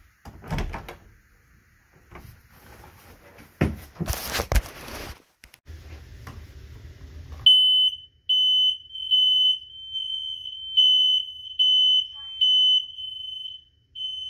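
Knocks and rustling as a pole-mounted tester is fitted over a ceiling smoke detector, with a brief hiss. About halfway through, the smoke detector goes into alarm: a loud high-pitched piezo tone sounding in repeated beeps, showing that it responds to the test.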